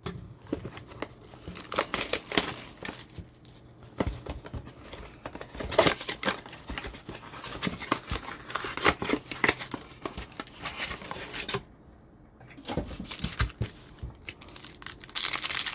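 Tearing and crinkling of trading-card packaging as a football-card blaster box and its packs are ripped open, in irregular rustling tears with a brief pause about three-quarters of the way through.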